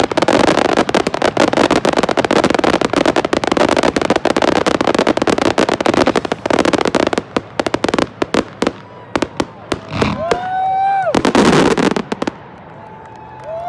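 Fireworks barrage: a dense, rapid volley of bangs and crackling that thins out after about eight seconds into a few separate bursts. Spectators start whooping near the end.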